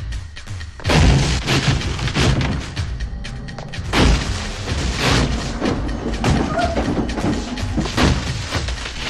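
Repeated heavy blows against a thick glass booth window, each a thud with cracking glass, over loud film score music.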